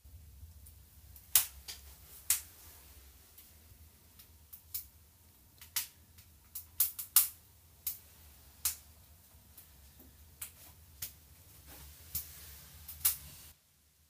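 Wood fire crackling in a sauna stove: irregular sharp pops and snaps of varying strength over a low steady rumble, which cuts off near the end.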